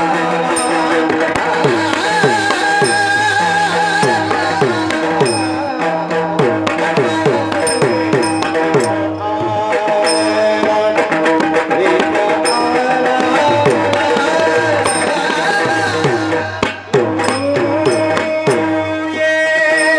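Devotional kirtan music: pakhawaj-style barrel drum strokes with falling pitch and regular high clicks keeping time over a sustained melody.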